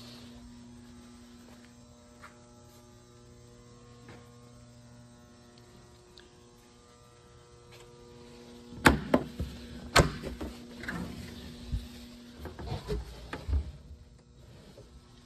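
A steady electrical hum, then from about nine seconds a run of sharp knocks and thumps with rustling handling noise. The loudest knocks come at about nine and ten seconds.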